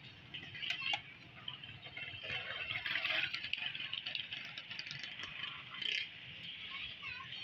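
Pakoras deep-frying in a large karahi of hot oil: a steady sizzle with crackling that swells in the middle. A few sharp metal clinks from the utensils.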